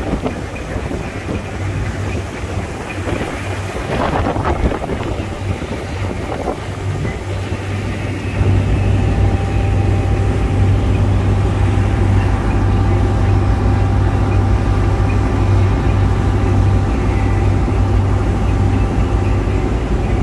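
Motorboat engine running under way, a steady low hum, with the rush of the churning wake. The engine grows louder about eight seconds in.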